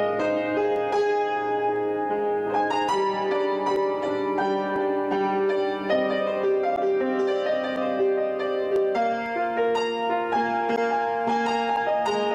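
Piano music: single notes and chords struck one after another and left to ring.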